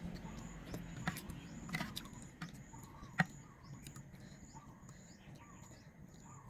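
Faint background of short high chirps repeating every half second or so, like birds or insects, with a few sharp clicks about 1, 2 and 3 seconds in, the last the loudest.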